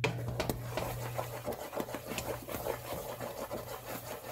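Black plastic slotted spoon stirring sticky melted marshmallow in a pot, rubbing and scraping against the pan in quick, repeated strokes. A steady low hum runs underneath.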